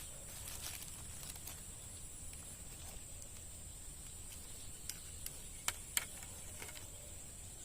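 Quiet outdoor ambience: a steady high-pitched hum over a low rumble, with a few sharp clicks about six seconds in.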